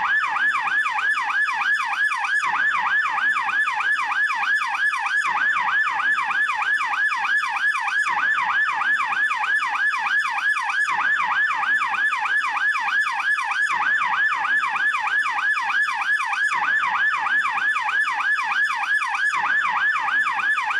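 Police yelp siren, billed as a German police siren, sounding continuously in a fast yelp: its pitch sweeps rapidly up and down, about three times a second, at a steady level.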